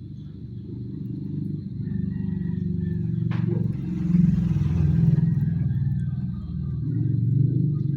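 A vehicle engine rumbling steadily, swelling louder through the middle and again near the end, with one sharp click about three seconds in.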